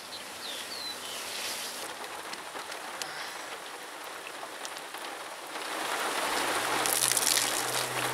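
Rain falling steadily, with scattered drops ticking; the hiss swells louder for the last couple of seconds.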